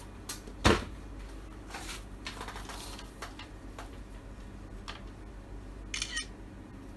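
Handling sounds as a sheet of paper is picked up and unfolded: a sharp knock under a second in, then light paper rustling and small clicks, with a brief louder rustle near the end.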